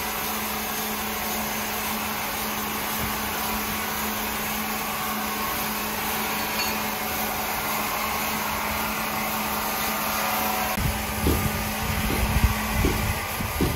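Large sawmill wood saw running with a steady hum and whir. About eleven seconds in, a series of low thumps and knocks joins it.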